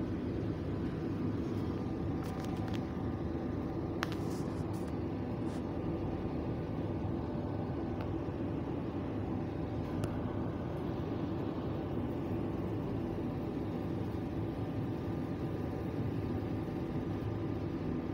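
Steady low mechanical hum with a few faint clicks between about two and ten seconds in.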